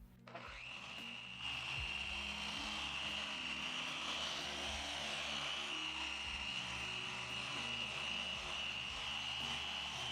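Electric machine polisher running steadily at speed 4 with a constant high whine, buffing compound polish into hazed, chalky car paint. It starts up within the first second.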